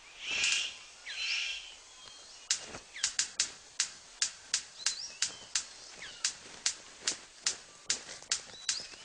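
Male superb bird of paradise in courtship display: three harsh, hissing calls, then a steady run of sharp clicks at about three a second, with a few thin chirps among them.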